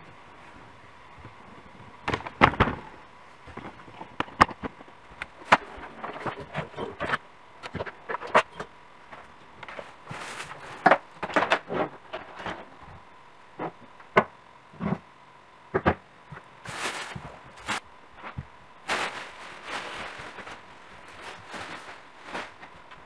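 Irregular knocks, clicks and rustling as a nightstand and table lamp are handled and set in place.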